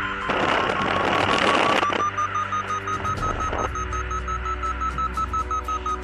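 Flymaster paragliding variometer beeping in a rapid train of short electronic beeps, the signal of climbing in a thermal; the beeps rise in pitch about two seconds in, as the lift gets stronger. A loud rushing noise covers the beeps for about a second and a half near the start.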